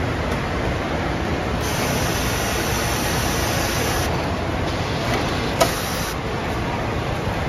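Pro 24 automatic bagging machine: a hiss of air starts about one and a half seconds in and runs for about four seconds as the bag is blown open, with one sharp click near its end. A steady machinery hum runs underneath.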